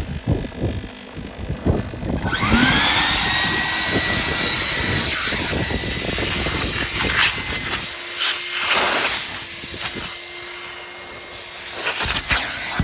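Numatic vacuum cleaner's motor switching on about two seconds in, its whine rising quickly in pitch and then running steadily. Rubbing and knocking noises come before it, and a lower steady hum joins about eight seconds in.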